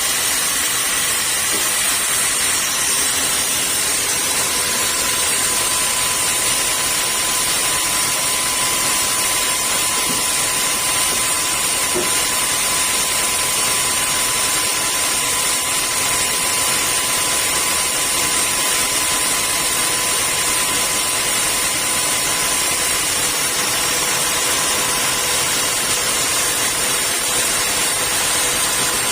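Sawmill saw machinery running steadily: an even, loud hiss with a constant high whine that does not change.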